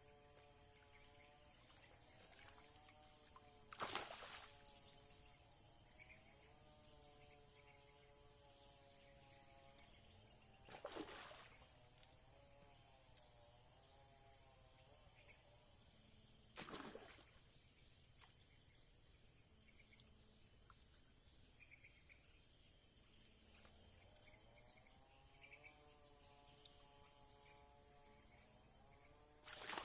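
Faint steady high-pitched chirring of insects such as crickets in the background, with a few brief louder noises about 4, 11 and 17 seconds in and again near the end, and a faint wavering pitched sound coming and going.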